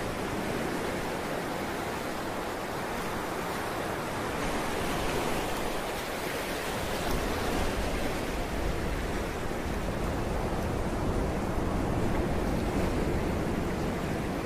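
Steady rushing of wind and water on a ship's deck, with a low rumble that grows stronger about halfway through.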